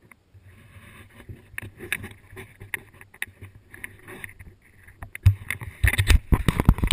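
Water splashing against the hull of a drifting jet ski, with wind on the microphone; from about five seconds in, loud thumps and knocks as a swimmer grabs hold of the jet ski's side.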